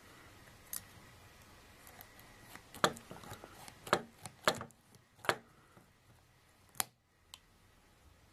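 Heavy-duty manual stainless steel cable tie tensioner being worked: about half a dozen sharp, irregularly spaced metallic clicks and snaps as it tightens and trims a stainless steel tie.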